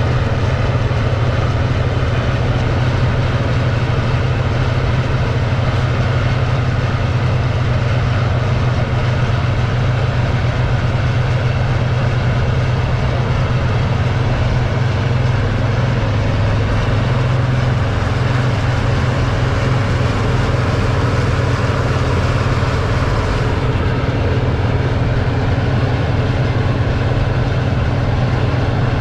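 Large farm machine's engine running steadily, a constant low drone.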